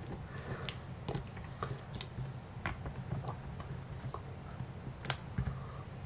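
Plastic pry tools clicking and tapping against a laptop's battery connector and the battery casing: scattered small ticks, the sharpest about five seconds in.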